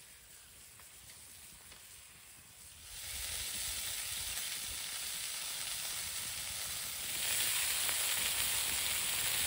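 Sausages sizzling on the flat hotplate of a campfire grill set over coals: a steady, fine hiss that gets louder about three seconds in and again near the end.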